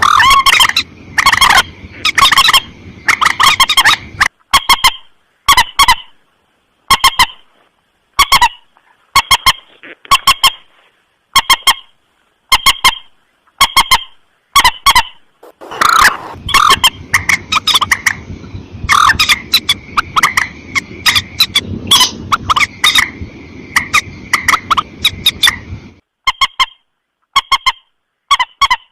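Mandar batu (common moorhen) lure call: short, harsh, honking notes repeated about once a second, running into a dense burst of continuous calling in the second half before thinning out again.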